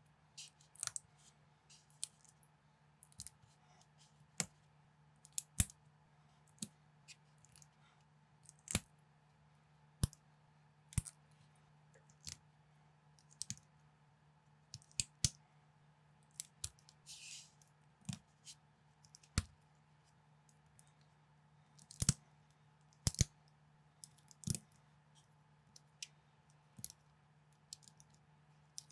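Plastic LEGO-type bricks being handled and pressed together, giving irregular sharp clicks and snaps a second or two apart, with a brief rustle of parts about two-thirds of the way through. A faint steady low hum runs underneath.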